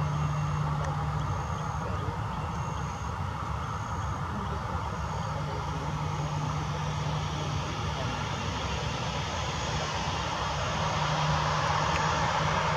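Boeing 737-800 jet engines running at low taxi thrust, a steady rumble and hiss that grows louder near the end as the airliner turns onto the runway.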